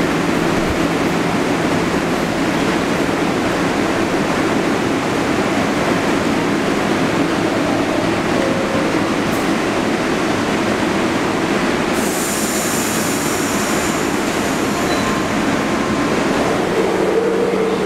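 Subway train running, a steady loud rumble of wheels on rail, with a brief high-pitched wheel squeal about twelve seconds in.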